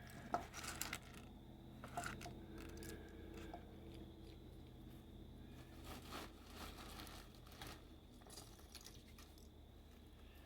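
Faint, scattered clicks and short scrapes of small plastic electronics parts being handled and pried at by hand, over a low steady hum.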